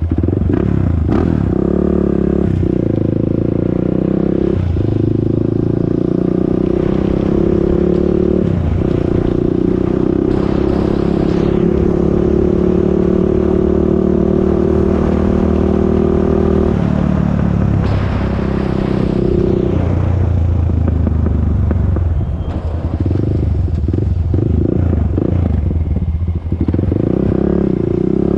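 Honda TRX400EX ATV's single-cylinder four-stroke engine running under way. Its pitch rises and falls, stepping several times as the throttle and gears change.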